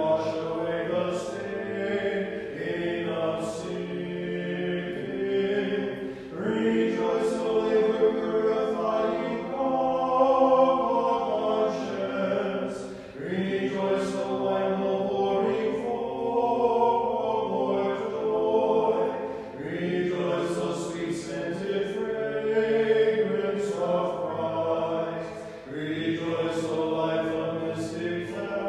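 Voices singing Orthodox liturgical chant a cappella in several-part harmony, in long phrases of about six to seven seconds separated by short breaks.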